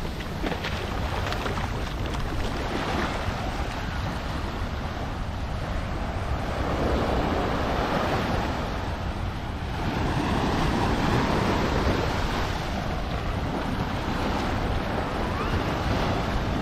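Waves washing onto a sandy beach, the surf swelling and easing every few seconds, with wind rumbling on the microphone.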